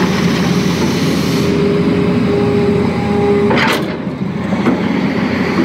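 Tata Hitachi excavator's diesel engine running steadily under load as the machine swings. A steady whine sounds for about two seconds and cuts off just past halfway, followed at once by a short hiss.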